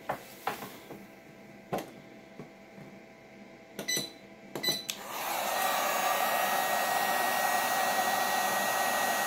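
A few clicks, two with short beeps, then about five seconds in an electric heat gun and a space heater switch on together and run with a steady fan whir.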